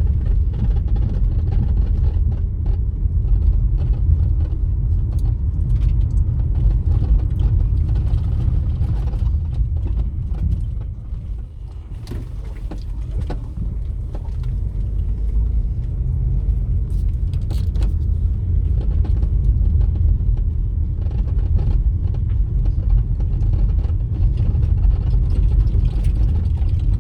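Vehicle travelling along a road: a steady low rumble of engine and road noise that eases for a moment about eleven seconds in.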